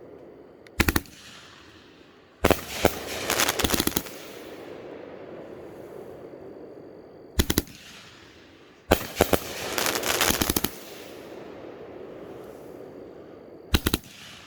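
Raccoon Fireworks 'Ghost Spirit' 500-gram firework cake firing. A sharp double report comes three times, about six seconds apart. Twice it is followed about a second and a half later by a rapid string of pops lasting a second or two.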